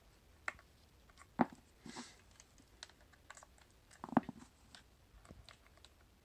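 Scattered clicks and taps of multimeter test probes being placed on a battery pack's terminals and handled, with louder knocks about a second and a half and four seconds in and a brief rustle near two seconds.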